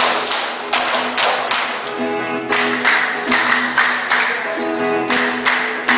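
Violas caipiras strummed together in a steady rhythm, about two to three sharp strokes a second, playing an instrumental passage without singing.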